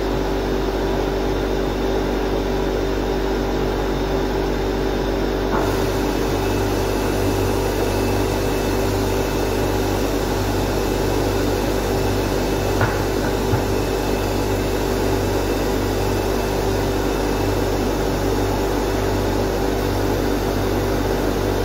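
The powered-up SCM Tech Z25 Plus CNC overhead router's machinery runs with a steady hum and rushing air noise while the head stands idle. Two light knocks come about 13 seconds in.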